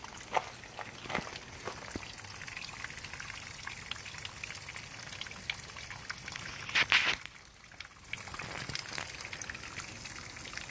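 Water running and trickling from a wet, leaking outdoor brass hose faucet and its plastic hose splitter, a steady splashing hiss with a brief louder rush about seven seconds in.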